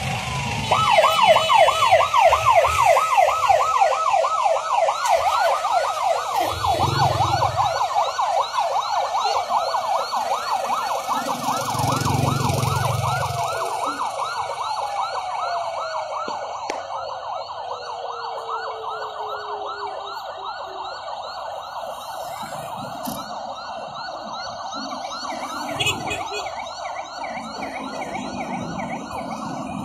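Emergency vehicle sirens from a convoy of ambulances and rescue trucks, sounding together in a fast yelp that sweeps rapidly up and down in pitch. Midway, another siren winds slowly down in pitch.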